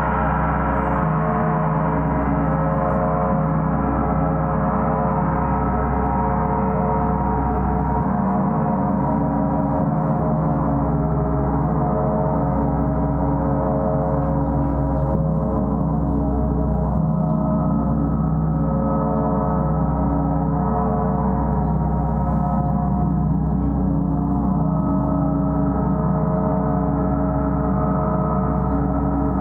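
Gong sounding continuously as a sustained wash of many overlapping tones held at an even loudness, with no separate strikes standing out.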